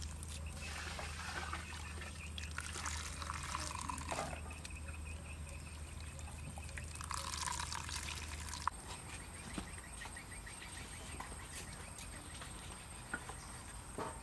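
Coconut milk trickling and dripping into a plastic strainer as a handful of wet grated coconut is squeezed by hand. About nine seconds in the sound changes, becoming quieter with scattered light clicks.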